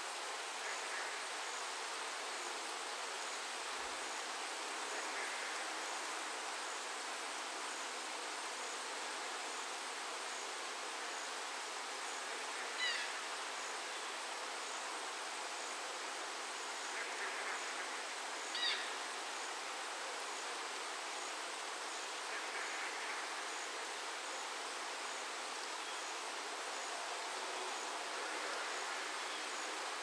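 Steady rain falling, an even hiss. A faint high ticking repeats evenly throughout, and two short bird chirps come a little before and a little after the middle.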